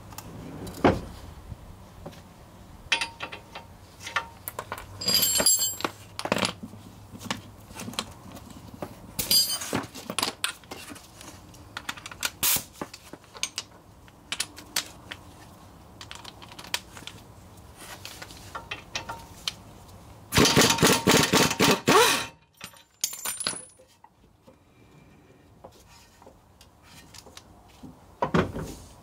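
Metal tools and parts clinking and clanking as suspension bolts are worked on, with an impact wrench hammering away at a bolt in one burst of about two seconds, about two-thirds of the way through.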